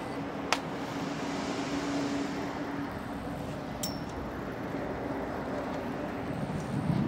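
Two sharp metallic clicks with a brief ring, about half a second and four seconds in, from netting being clipped onto a greenhouse's steel pipe frame, over a steady outdoor rumble and hiss. A louder low surge of noise comes near the end.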